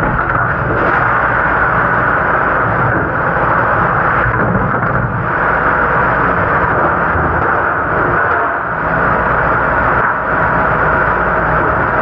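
Commercial dish machine running, a steady, even noise of water spray and wash pump.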